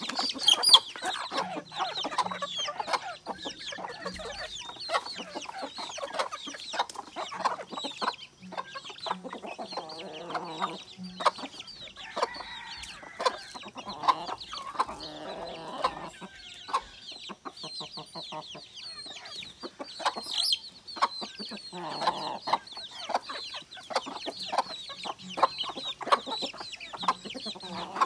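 Native chickens clucking as they feed, with chicks peeping in short high notes throughout and a few longer hen calls.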